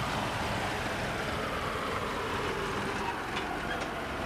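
Electronic background music: a long, noisy sweep that falls slowly in pitch, like a transition effect.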